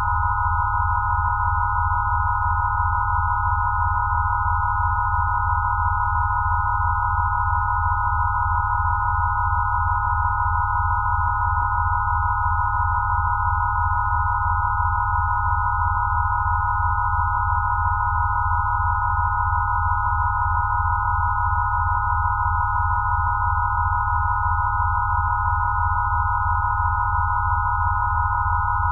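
Electronically generated 'Rife' frequency tones: a steady cluster of pure sine tones around 1 kHz over a low tone that pulses rapidly, held unchanging.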